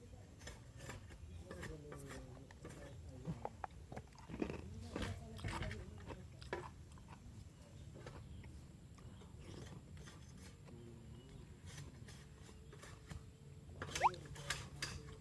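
People eating close to the microphone: chewing and crunching with scattered small clicks and taps, as of fried snacks and noodles. A short, sharp rising squeak near the end is the loudest sound.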